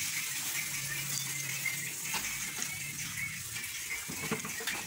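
Steady sizzling hiss of a grated coconut and palm sugar filling cooking in a pan, with a faint low hum under it.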